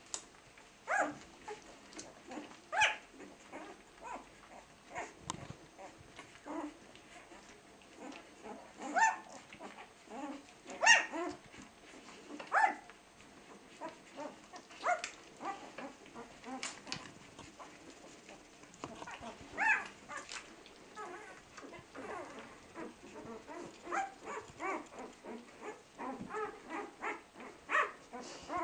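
Week-old Flat-coated Retriever puppies squeaking and whimpering as they nurse: short, high cries at irregular intervals, the loudest about eleven seconds in and a busier run of them near the end.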